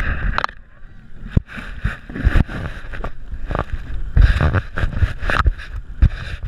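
Motorboat running as it pulls away, its wake churning behind, with irregular low thumps on the microphone throughout.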